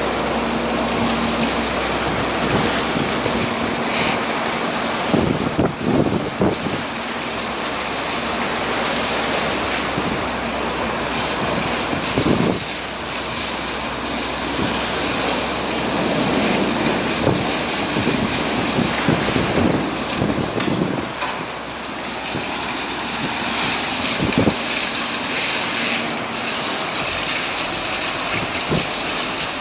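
Inland motor cargo ship moving slowly through a lock chamber: a steady rush of stirred-up water and wind, with a faint engine hum at times and several short gusts buffeting the microphone.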